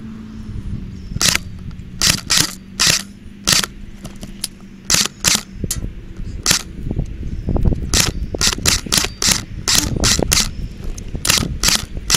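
Airsoft guns firing in a back-and-forth exchange: about twenty sharp snapping cracks at irregular intervals, some in quick pairs, coming faster in the second half.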